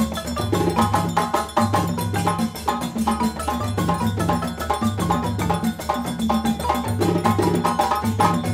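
Percussion music with a fast, steady beat: a wooden mallet-instrument melody over repeating bass notes and drums.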